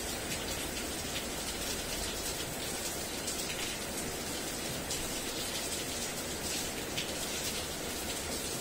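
Steady rain pouring down, a dense even hiss with scattered ticks of drops splashing.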